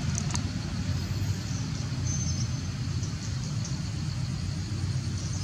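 Steady low outdoor rumble, with a few faint high clicks shortly after the start.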